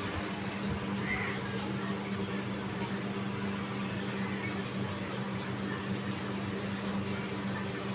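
Steady mechanical hum with a low, even drone, like an electric appliance running in a small room.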